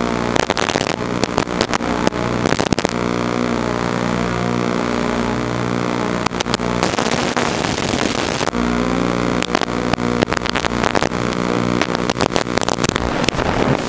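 FPV quadcopter's motors and propellers running with a steady buzz, broken by frequent crackles, with a stretch of hiss about halfway through.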